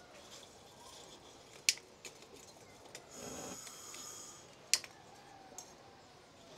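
Lumps of charcoal knocking and scraping against each other in a metal basin as they are arranged by hand: two sharp clinks, with a second or so of rustling scrape between them.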